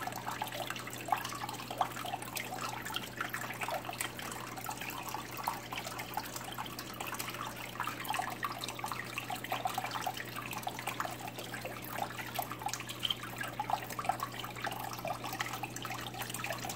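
Water trickling and dripping into a paludarium's water section, a continuous run of small irregular plinks and splashes over a steady low hum.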